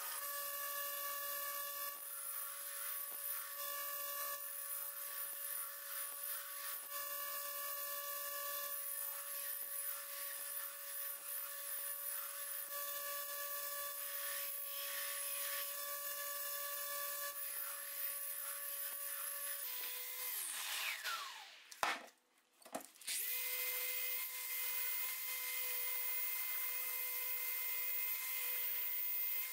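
Belt grinder running steadily while the steel axe head is pressed against the belt. About twenty seconds in its pitch falls and it stops. After a short gap, a random orbital sander starts and runs steadily on the axe head.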